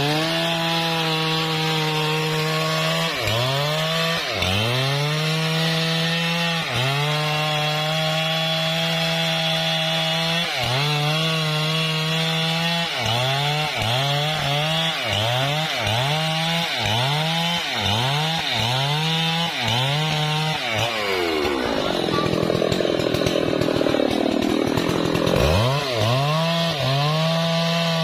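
Husqvarna 3120 XP two-stroke chainsaw cutting through a trembesi log at full throttle, its engine note dipping and recovering again and again as the chain bites and clears. Near the end it bogs deeper into a rougher, noisier cut before revving back up.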